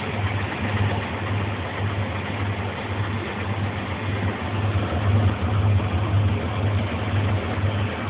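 Zanussi Z630INOX washing machine spinning its drum in the intermediate rinse spin of about 550 rpm. A steady whir carries a low motor hum that pulses about twice a second.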